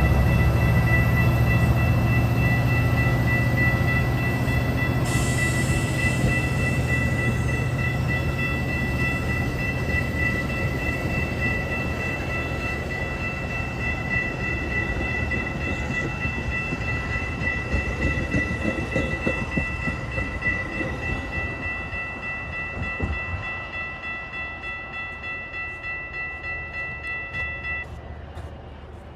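Metra diesel commuter train pulling away and fading, its heavy low rumble dying down over the first several seconds. A steady high-pitched tone sounds throughout and cuts off suddenly near the end.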